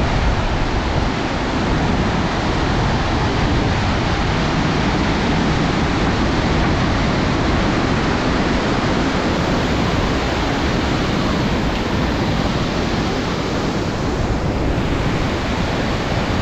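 Fast glacial meltwater stream rushing loudly and steadily.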